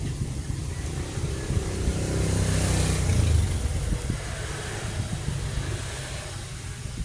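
Low engine rumble of a motor vehicle, swelling to a peak about three seconds in and then fading away.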